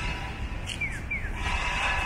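Electronic bird-like 'piyo' chirps of a Japanese pedestrian crossing signal: two short falling tones about a second in, part of a regular pair-then-single pattern, which signals that the crossing is open to walk. Under them is a steady low traffic rumble.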